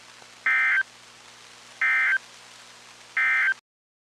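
Emergency Alert System End-of-Message tones from NOAA Weather Radio: three short, identical bursts of SAME data chirps, spaced a little over a second apart, over a low hum and hiss, cutting off sharply after the third. They mark the end of the alert message.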